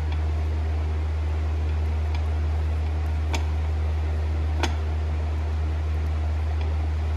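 A steady low hum with two short, light clicks a little past the middle.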